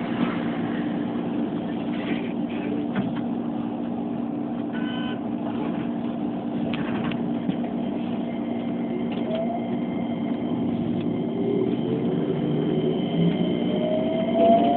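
Keikyu 2100-series electric train running, heard from on board: a steady rumble and hum with a few clicks from the track. From about eleven seconds in, a rising whine of several tones builds as the train accelerates.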